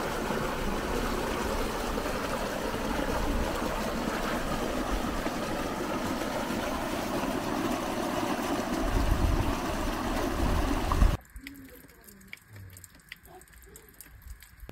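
Small cascade rushing into a river pool, with wind rumbling on the microphone. About eleven seconds in it cuts to a much quieter stretch with a few faint drips of water.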